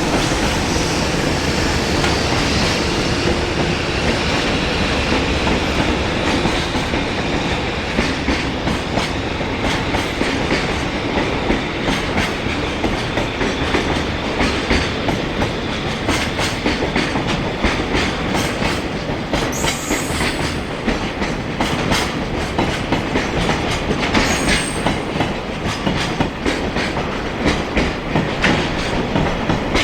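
Japanese container freight train of Koki flat wagons passing close by: a steady rumble with a fast, continuous clickety-clack of wheels over the rail joints. Two brief high squeals come about two-thirds of the way through.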